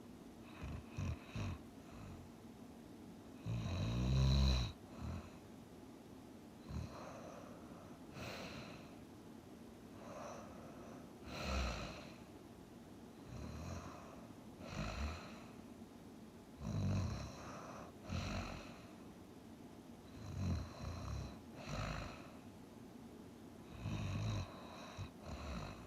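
A sleeper snoring, with uneven snores and breaths every second or two. The loudest and longest snore comes about four seconds in.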